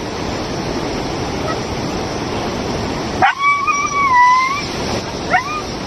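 A dog caught in floodwater whining in distress over the steady rush of the water. About three seconds in comes one long high whine that rises, holds and sags, and near the end a short rising yelp.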